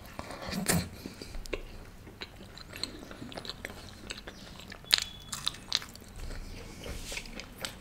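A man biting into food and chewing close to the microphone, with scattered crisp crunches and mouth clicks. The sharpest click comes about five seconds in.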